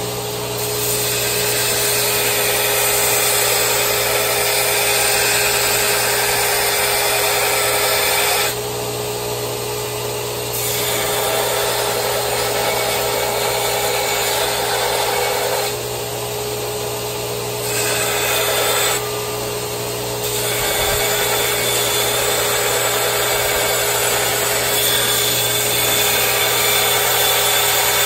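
Hand-held angle grinder running steadily and grinding steel. The grinding noise drops back three times for a second or two while the motor keeps spinning, as the disc comes off the work.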